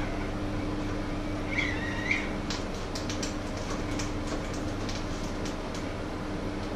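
Steady low kitchen hum and hiss, with a brief high squeak about one and a half seconds in, then a run of light clicks and taps of food preparation at a wooden counter.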